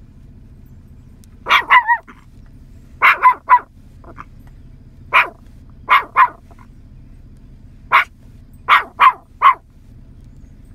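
Nine-month-old Yorkshire terrier barking in short, high yaps, in quick clusters of one to three, about fourteen barks in all.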